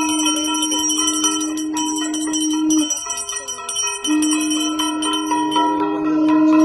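Brass puja hand bell rung rapidly and continuously during an aarti. Under it a long steady low tone is held for about three seconds, stops, and starts again about four seconds in.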